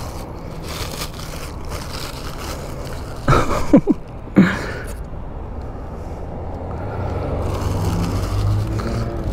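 Street traffic noise. A short burst of scraping with brief squeaks comes about three to four and a half seconds in, and a low vehicle hum builds near the end.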